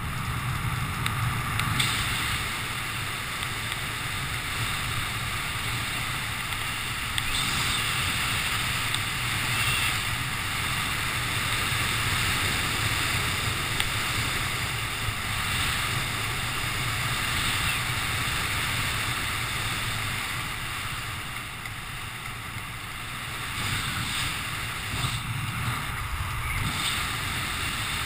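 Steady wind rushing over the microphone of a skydiver's camera during descent under an open parachute canopy.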